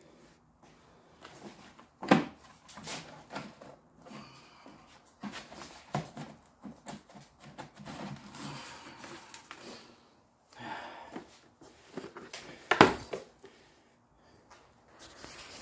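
A plastic form being worked loose and pulled out of the cast refractory lining of a home-made foundry. It makes irregular scraping and rubbing sounds against the lining, with two sharp knocks, one about two seconds in and one later on.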